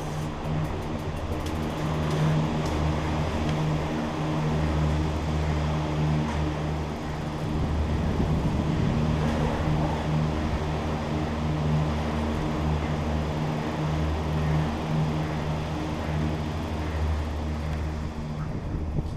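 Low steady machine hum of cable-car station machinery, a drone with a second higher band that swells and eases every few seconds.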